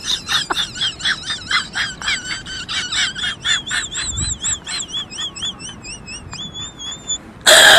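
Rapid high-pitched squeaking cries of small animals, about three or four a second, each rising and falling in pitch, running together into longer wavering whines near the end. A sudden loud burst of noise cuts in just before the end.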